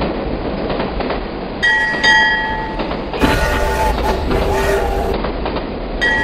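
Toy steam train sounds: a steady chugging run with two short whistle blasts about a second and a half in, then a longer wavering whistle-like sound lasting about two seconds.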